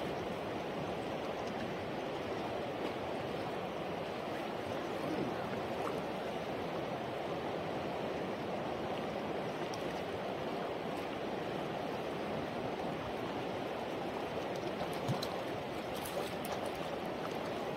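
River water rushing steadily, with a few faint ticks near the end.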